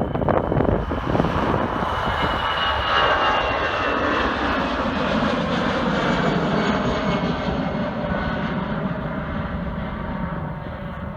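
Airliner's engines passing close by: a steady loud roar with a faint high whine that slowly falls in pitch. The sound stops abruptly at the end.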